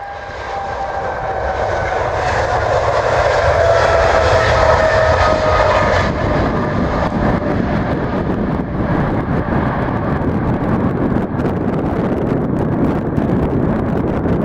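Boeing 777F freighter's twin GE90 turbofans at takeoff power. A whine slowly falls in pitch over the first several seconds above a growing rumble; the rumble is loudest about four to six seconds in, then carries on steadily as the jet climbs away.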